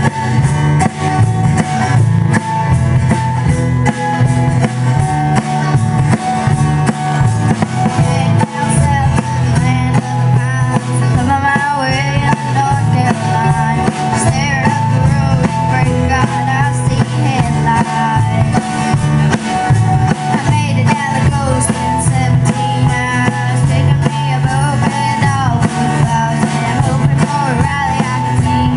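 Live band playing an instrumental passage: acoustic guitar, upright bass and drum kit, with a melody line over them that bends in pitch.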